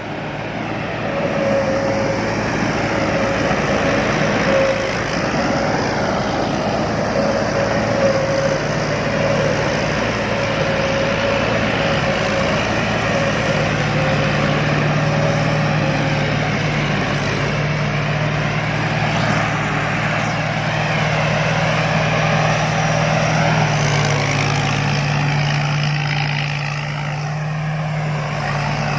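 Rice combine harvester running steadily at working speed: a deep, continuous engine note, with a steady higher whine over roughly the first half.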